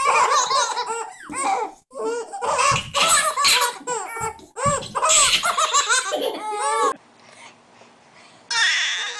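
Two babies laughing together in repeated belly-laugh bursts, breaking off suddenly about seven seconds in.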